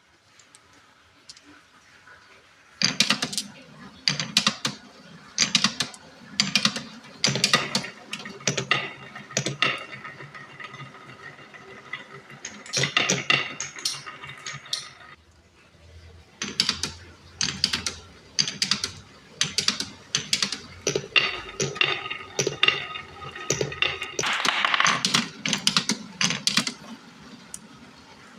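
Marbles rolling and clattering down a wooden HABA marble run and through its pipes: an irregular stream of sharp clicks and knocks with short ringing rolls, starting about three seconds in.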